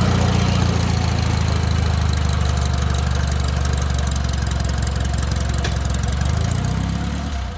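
Small diesel locomotive's engine running at a steady speed as it moves slowly past, with one sharp click about five and a half seconds in. The engine sound drops away suddenly just before the end.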